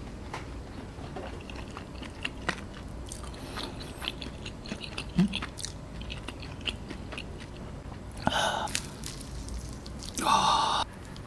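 Close-miked chewing and small mouth clicks of a person eating fried chicken. Two crackling crunches come near the end; the louder, second one comes as a piece of fried chicken with crisp skin is torn apart by hand.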